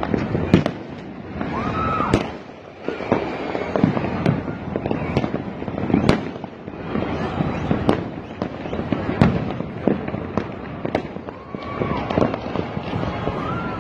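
Many fireworks and firecrackers going off across a city: a dense, irregular run of sharp bangs and crackles over a continuous rumble of more distant bursts.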